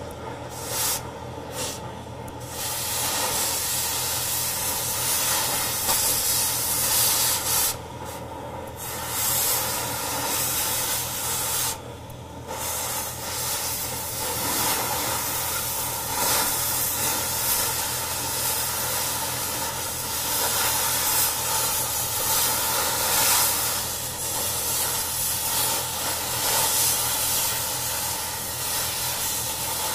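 Oxy-fuel cutting torch cutting steel: a steady hissing rush from the flame and cutting jet. The hiss briefly dips a few times in the first half.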